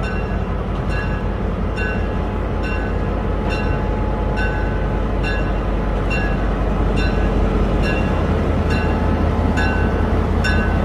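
Diesel locomotive running as it moves off, its engine a steady low drone that grows louder about eight seconds in. Over it, a bell-like ring is struck at an even pace of about three strikes every two seconds.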